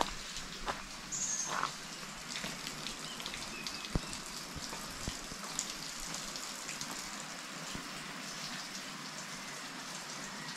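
Steady rain falling in forest: an even hiss of drops with scattered drips and ticks. A few footsteps on the wet trail sound in the first two seconds.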